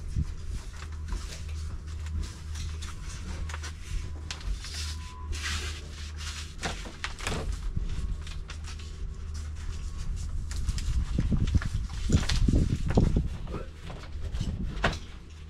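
Foil-faced Kingspan rigid insulation board being handled and pushed into place against a block wall: scattered scrapes, rubbing and light knocks, busiest near the end, over a steady low hum.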